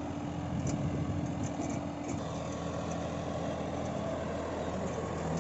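John Deere 5405 tractor's diesel engine running steadily under load as it pulls a laser land leveller, with an even low hum that holds the same pitch throughout.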